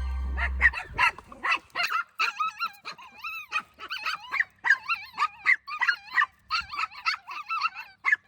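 Dogs whining and yipping in a quick run of short, wavering, high-pitched calls, two to three a second.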